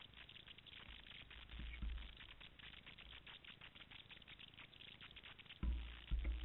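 Faint, dense crackling of dry leaf litter, many small crisp clicks close together, with two low thumps near the end.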